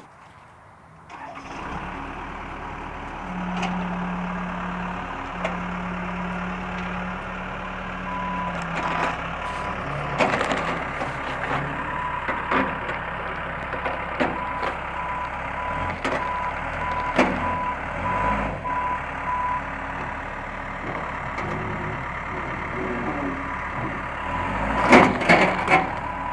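Backhoe engine running, coming up about a second in, with its reversing alarm beeping about once a second for a stretch and again near the end. Scattered knocks and clanks throughout, loudest near the end.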